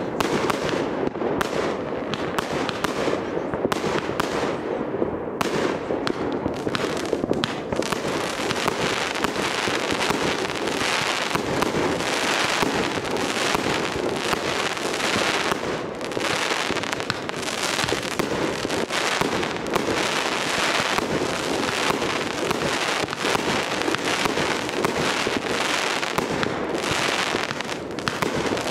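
Fireworks going off: aerial shells bursting, heard as a dense, unbroken run of bangs and pops.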